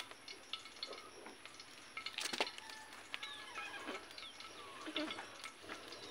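Scattered light clicks and snaps of twigs and kindling at a smoky, slow-catching wood fire, one sharper snap about halfway through, with a few faint short bird chirps.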